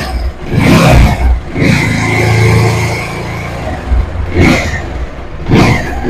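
Bajaj Pulsar 220 motorcycle engine running and being revved in repeated bursts, rising and falling.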